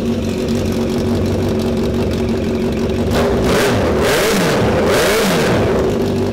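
Yamaha FZ8's inline-four engine idling, then revved up and back down twice in quick succession about three and five seconds in. It runs through an open exhaust, its muffler removed and only the pipe left.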